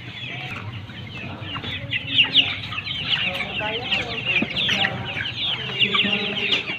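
A flock of young heritage chickens peeping without pause, a dense overlapping chorus of short, high, falling chirps with the odd lower call among them.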